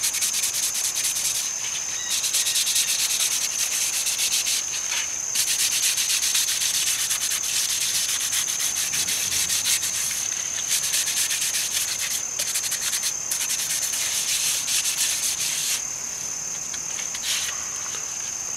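Scotch-Brite scouring pad scrubbed in quick back-and-forth strokes over a hockey mask, with a few short pauses, dying away near the end. It scuffs the gloss off the surface so the paint wash will grip instead of beading up. A steady high insect trill runs underneath.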